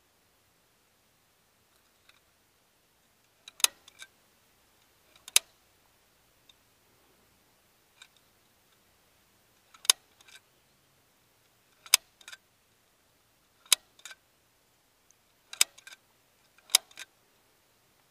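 Hot glue gun trigger clicking: about seven sharp clicks a second or two apart, each followed by one or two softer clicks, as glue is squeezed onto carpet wrapped over a trailer bunk.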